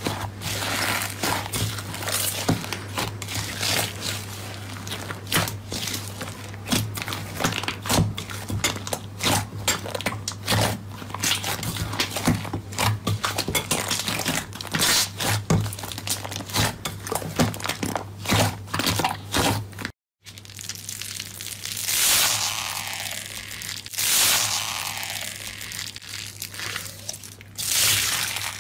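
Crunchy slime being squeezed and pressed by hands, giving a dense run of crackling and crunching clicks over a steady low hum. After a brief silent break about 20 seconds in, the crackling becomes sparser and softer.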